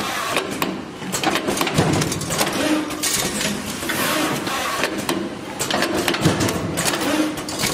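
Automatic double-loop wire punching and forming machine running: a constant run of sharp mechanical clicks and clacks, with a lower machine tone that swells and fades about once a second as it cycles.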